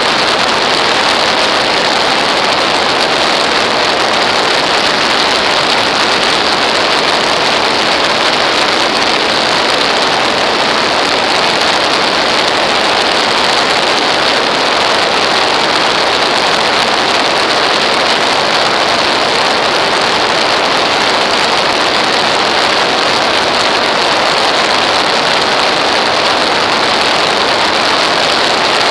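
Steady, loud rush of airflow over a wing-mounted camera in flight, an even hiss with no distinct engine tone and no change in level.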